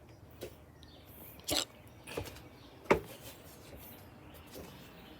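Several short, irregular knocks and thumps, the loudest about three seconds in, over faint outdoor background.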